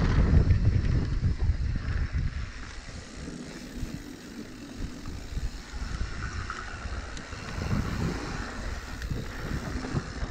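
Wind rushing over the microphone with tyre noise on a dirt trail as a mountain bike rolls downhill, loudest in the first couple of seconds and easing after that.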